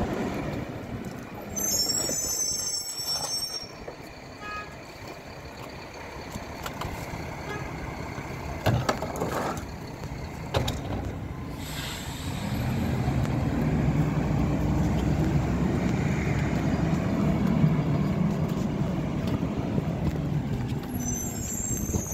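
Mack GU garbage truck with a Leach rear-loader body: its diesel engine runs low at first, then from about halfway it grows louder as the truck pulls away and drives off. A high squeal comes early on and again near the end, and there are a couple of sharp knocks in between.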